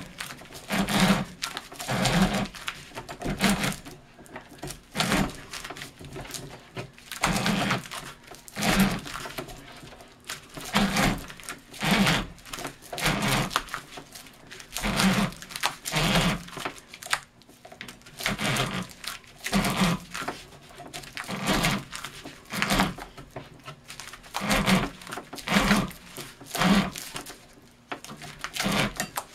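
Tensioned spiking string being pulled and wrapped around a large paper cylinder firework shell as the shell is turned on conveyor rollers. The pulls come over and over, about one every second and a half, each a short rasping burst.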